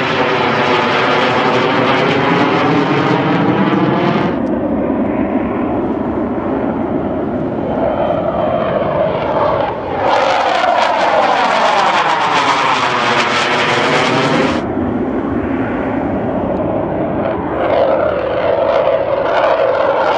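Military jets climbing out after takeoff pass low overhead one after another, with loud jet engine noise. As each jet goes over, the tone sweeps down and back up. A second jet passes about ten seconds in.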